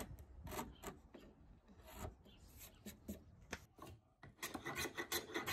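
Faint scraping of hand tools on red oak: a few light chisel scrapes cleaning out a saw slot, then a run of quick rubbing strokes near the end.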